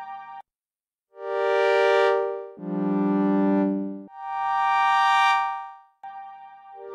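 Sequential Pro 3 analog synthesizer playing a pad sound. After a brief silence, three slow-swelling sustained notes of about a second and a half each follow one another, the third fading out before another begins near the end.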